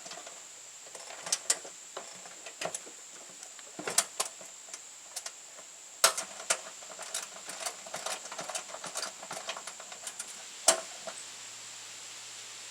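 Scattered clicks and knocks of hand work on a riding mower's parts, with a sharp knock near the end.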